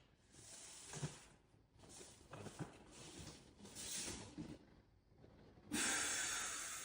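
A person breathing audibly: a few soft breaths, then a louder, long hissing exhale starting near the end.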